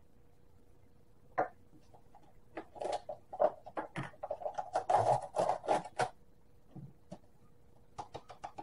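Kitchen containers being handled: a scatter of light clicks and taps, then a busier run of knocks and scraping in the middle as a canister is lifted off the counter and its lid pulled off.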